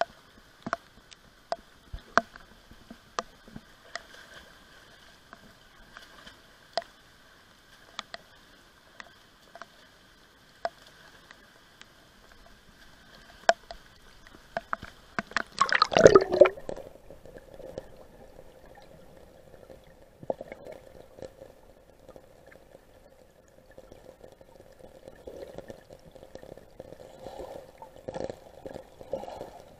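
River water sloshing and dripping around a partly submerged action camera, with scattered sharp drips. About halfway through comes a loud burst of splashing and sloshing, then a softer, muffled gurgling.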